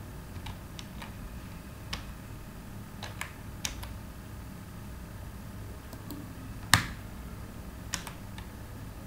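Scattered computer keyboard keystrokes, about ten separate clicks at irregular intervals, the loudest a sharp click about seven seconds in. A steady low hum runs underneath.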